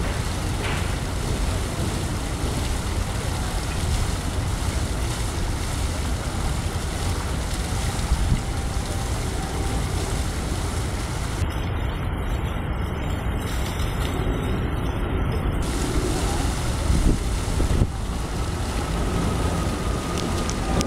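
Fountain water pouring from spouts and splashing into the pool, a steady rushing noise, with low wind rumble on the microphone.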